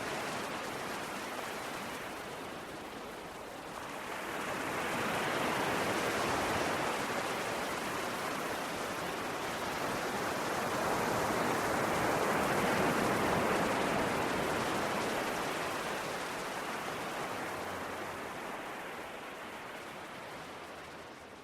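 Ocean waves washing onto a shore, with swells building about four seconds in and again a few seconds past the middle, then easing off.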